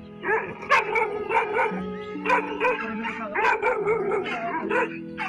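A dog barking repeatedly, about two or three barks a second, over background music with long held notes.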